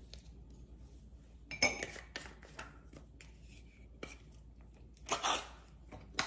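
Kitchen utensil clatter: a metal spoon clinking against a glass mixing bowl and small items being set down. One sharp ringing clink comes about a second and a half in, and a short scraping rustle comes about five seconds in.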